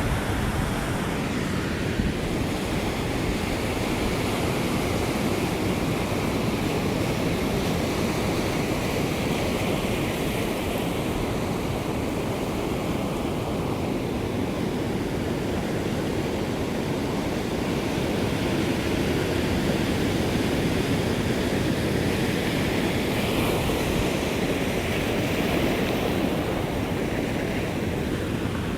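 Ocean surf: a continuous rush of breaking waves, swelling and easing slowly as successive waves wash in.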